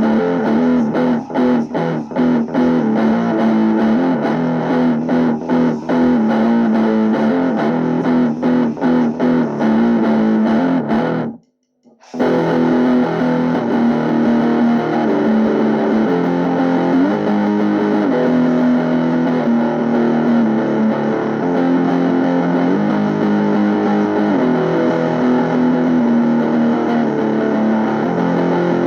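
Music: distorted electric guitar playing sustained, chord-like notes, cutting out to silence for about half a second roughly eleven seconds in before carrying on.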